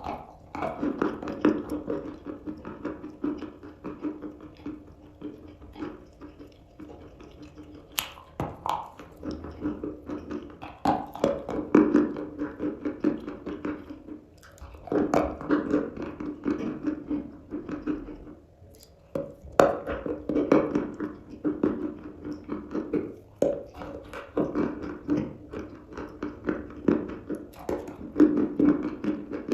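Chalk being bitten and chewed close to the microphone: bursts of rapid crunching with a few sharp snaps, separated by short pauses.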